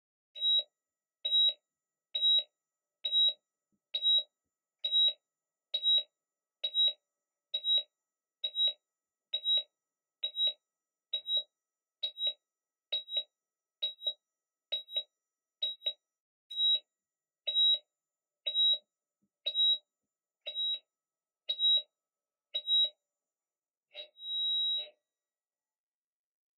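Patient heart monitor beeping steadily, a short high beep a little faster than once a second. Near the end the beeps stop and give way to a longer held tone, as in a flatline.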